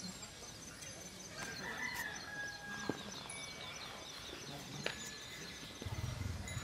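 A rooster crows once, about a second and a half in, over a steady run of high repeated chirps. A low pulsing sound comes in near the end.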